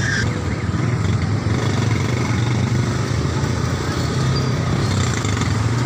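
Roadside traffic noise: a steady low engine drone from motor vehicles on the road, with an even rush of street noise.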